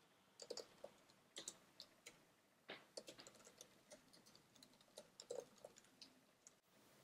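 Faint keystrokes on a computer keyboard: short irregular runs of clicks with small pauses between them, as a line of text is typed.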